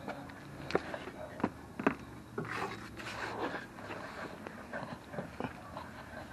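Workshop handling noise: a few sharp knocks and clicks, with a stretch of rustling about halfway through, as parts and tools are handled while the back section of the turbo exhaust is fitted.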